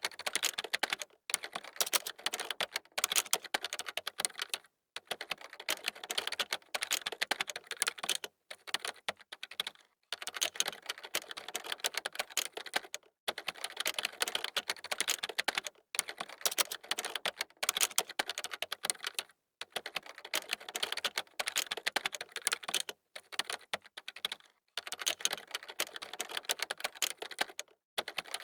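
Fast typing on a computer keyboard: rapid key clicks in runs of one to several seconds, broken by short pauses.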